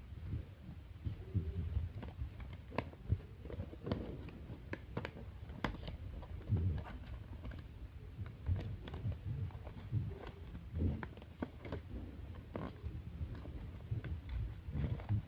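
Paper being handled and folded: irregular soft clicks and crinkles with low thumps of hands and paper against a surface.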